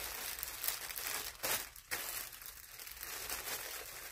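Clear plastic packaging bag crinkling and rustling continuously as it is handled and pulled open, with a few sharper crackles among it.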